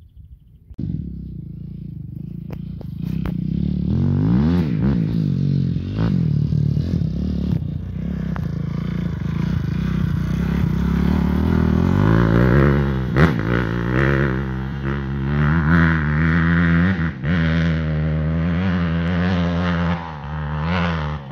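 Dirt bike engine revving hard as the bike rides off and climbs a steep hill, its pitch rising and falling with the throttle. It comes in suddenly about a second in, with a few sharp cracks along the way.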